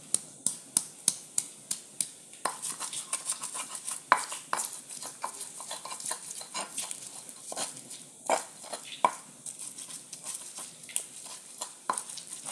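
Pestle pounding and grinding garlic with turmeric and salt in a mortar: sharp strikes about three a second at first, then from about two and a half seconds in quicker, denser tapping and scraping with a few louder knocks.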